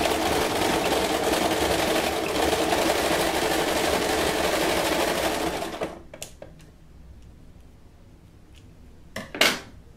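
Electric domestic sewing machine running steadily, stitching a bra's hook-and-eye closure, stopping about six seconds in. Near the end there is one short, sharp sound as scissors cut the thread.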